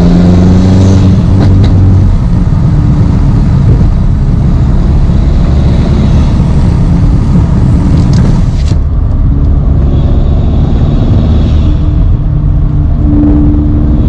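Turbocharged 2.0-litre four-cylinder of an 8Y Audi S3 cruising under light throttle, heard from inside the cabin, with steady intake induction noise from a velocity-stack intake. The automatic shifts up from fourth to fifth partway through.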